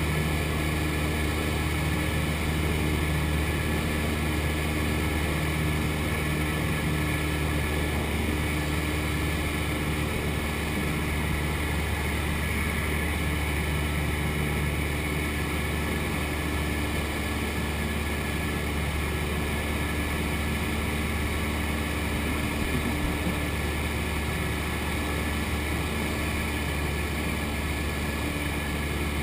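Cessna 172's piston engine and propeller droning steadily, heard inside the cockpit, with an even, unchanging pitch.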